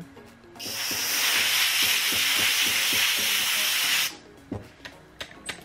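Compressed air hissing steadily from a pneumatic blow gun for about three and a half seconds, then cutting off sharply.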